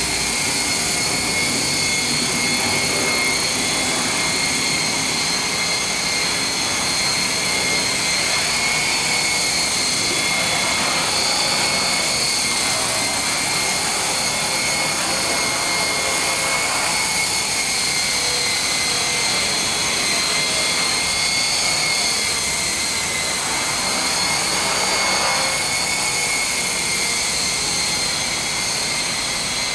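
Art-Tech Falcon 3D electric RC helicopter running: a steady, high-pitched motor and gear whine with rotor noise. The pitch wavers slightly about two-thirds of the way through.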